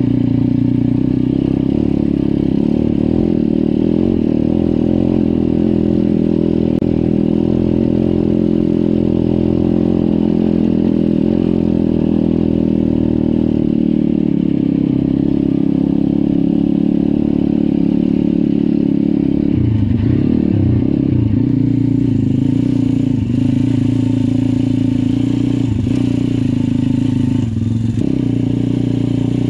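Pit bike's single-cylinder four-stroke engine running under steady, moderate throttle while being ridden over a dirt track; the engine is being run in and is ridden gently. Its pitch wavers and dips briefly about twenty seconds in, then settles again.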